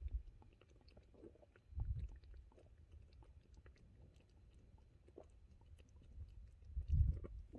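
A person chewing a mouthful of food close to the microphone, with small wet clicks, as he tastes a spicy home-made curry. Two dull low thumps come about two seconds in and near the end.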